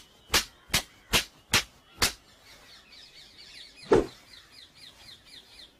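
A run of sharp smacks, about two and a half a second, that stops about two seconds in, followed by faint birds chirping and one more single hit about four seconds in.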